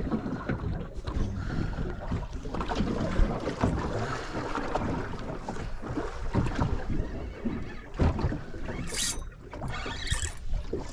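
Wind buffeting the microphone over the sound of sea water around a small fishing boat, with two brief hisses near the end.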